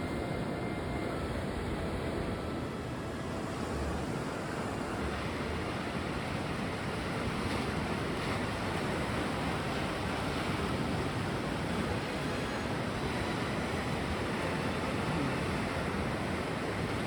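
Steady wash of sea surf on the shore.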